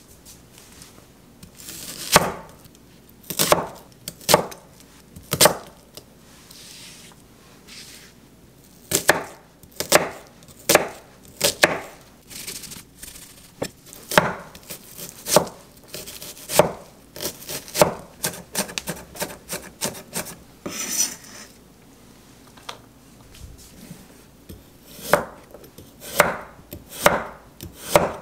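A wide-bladed kitchen knife chopping an onion and then slicing a carrot on an end-grain wooden cutting board: separate crisp knocks of the blade on the wood, often about a second apart, with pauses between runs of cuts. A brief rustling hiss comes about twenty seconds in.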